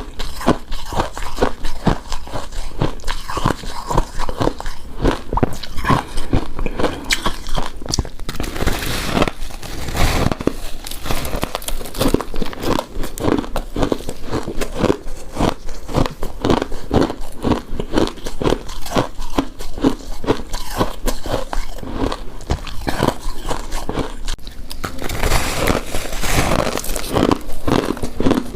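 Close-miked chewing and biting of a soft, chewy coconut-coated rice cake: a dense, continuous run of short mouth clicks and smacks, with noisier stretches about nine seconds in and again near the end.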